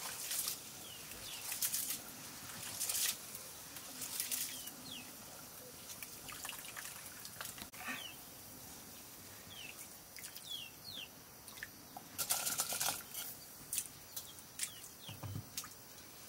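Rice being washed by hand in a steel bowl of water: repeated wet swishing and splashing as the grains are stirred and squeezed, in short bursts, with a few faint high chirps.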